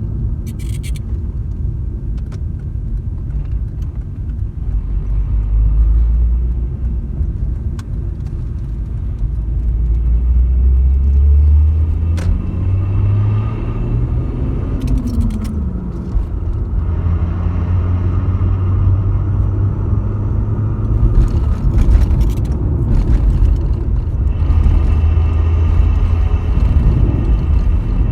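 Toyota Crown Athlete V's 1JZ-GTE turbocharged straight-six running as the car drives. The engine note rises under acceleration, breaks off about twelve seconds in at a gear change, and climbs and falls again, then settles into steady running.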